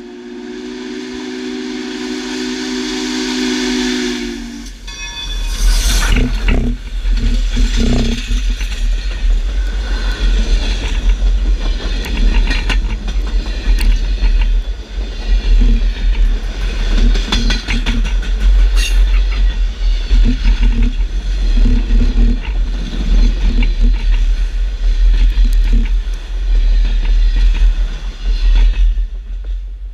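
A 2-8-4 Berkshire steam locomotive's chime whistle blowing as it approaches, growing louder, then the train rumbling past right beside the rail, its wheels clacking over the track, as the passenger cars roll by.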